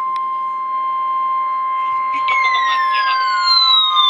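NOAA Weather Radio 1050 Hz warning alarm tone: a steady, unbroken high beep that signals an incoming watch or warning broadcast. About two seconds in, a second siren-like tone joins it and glides slowly downward in pitch.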